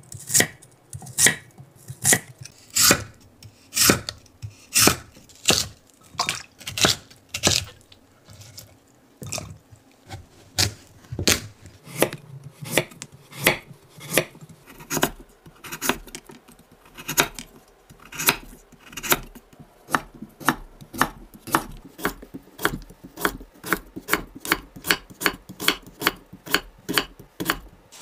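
Santoku knife slicing through lotus root and kabocha squash onto a wooden cutting board: a steady run of crisp knife strikes, the pace picking up to a quicker rhythm in the second half.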